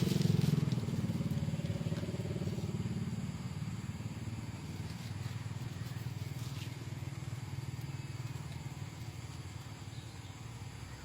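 A low, rapidly pulsing mechanical drone that fades steadily away.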